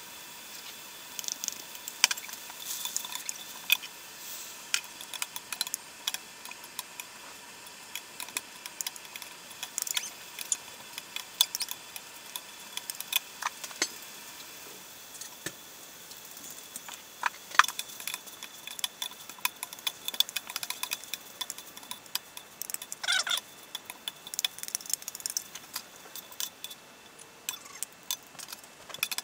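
Metal spatulas scraping and clinking irregularly against a large iron griddle plate as instant noodles, cabbage and bacon are stir-fried, over a light sizzle.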